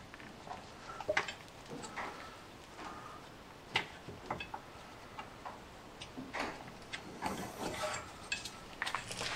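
Irregular light metal clinks and taps as tools and suspension parts are worked by hand to get a washer and the lower wishbone into place under a car, with one sharper clink about four seconds in and a quick run of clicks near the end.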